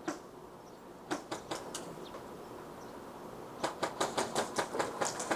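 Sharp clicks of airsoft fire: a few scattered ones, then a little past halfway a fast string of about five a second.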